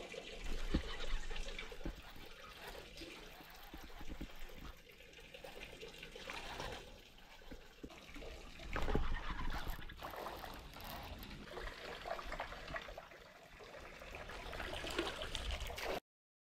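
Water trickling in a concrete irrigation canal, with scattered brief clicks and rustles; the sound cuts off near the end.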